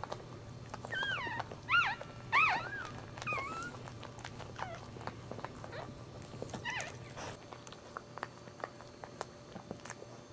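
Newborn Maltese puppy squeaking: a quick run of about five short, high cries, each bending up and down in pitch, between one and four seconds in, then one more cry around seven seconds. Faint clicks throughout.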